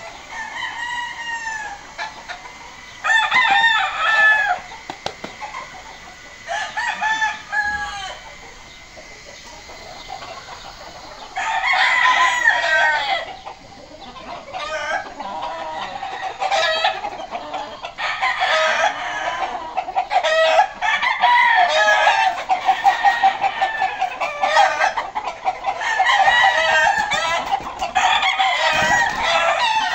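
Gamecock roosters crowing from their pens: separate crows with pauses at first, then from about halfway overlapping calls follow almost without a break.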